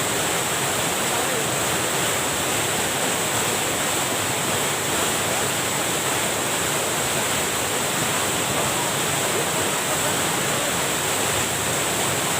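Steady rush of water pouring over a small weir cascade, with the stream running high after heavy rain.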